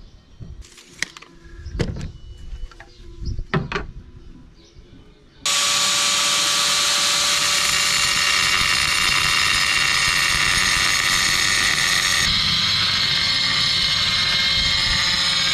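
A few scattered knocks, then a power tool starts abruptly about five seconds in and runs at a steady pitch, its sound shifting slightly about three seconds before the end.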